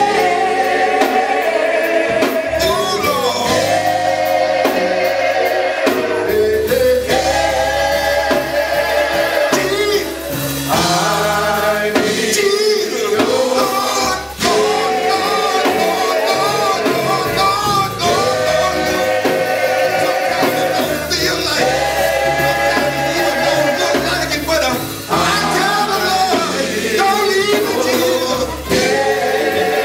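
Live gospel song: voices singing over a band with a held bass line.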